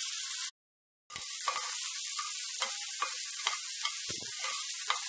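Hot oil sizzling steadily as pieces of pre-cooked mutton and green chillies fry in a pan, with scattered clicks and scrapes of a steel spatula turning the meat. The sound cuts out for about half a second near the start, then resumes.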